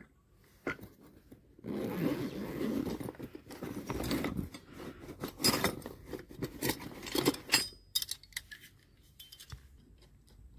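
Rummaging through a fabric tool bag: a couple of seconds of rustling, then a run of sharp metallic clinks and clicks as hand tools knock together.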